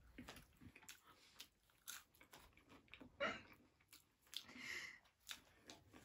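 Faint close-up chewing and mouth sounds of someone eating, with scattered soft clicks and a couple of slightly louder bites about three and five seconds in.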